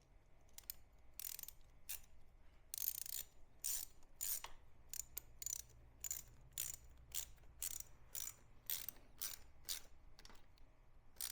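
Ratchet wrench clicking in short, repeated strokes, about two a second, as the coolant drain plug is screwed back in and tightened.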